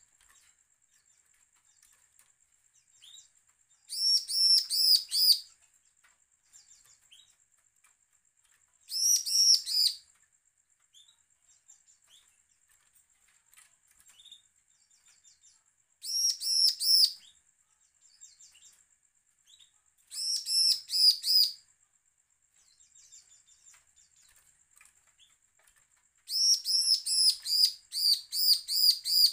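Caged bar-winged prinia (ciblek) giving its threatening calls: five bouts of rapid, high, repeated notes, each a second or two long and the last the longest, with soft single chirps between them. A faint steady high tone runs underneath.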